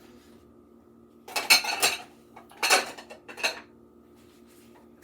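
Kitchen dishes and utensils clattering: a rattling clatter about a second and a half in, then two shorter clinks around three seconds in.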